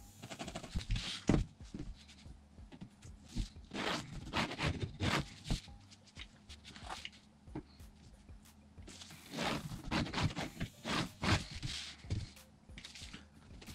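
Graphite pencil scratching along a metal metre ruler on vinyl, with the ruler sliding and knocking on the cutting mat as it is moved between lines: an irregular run of short scrapes and taps. The sounds come in louder clusters about a second in, around four to five seconds in, and from about nine to eleven seconds in.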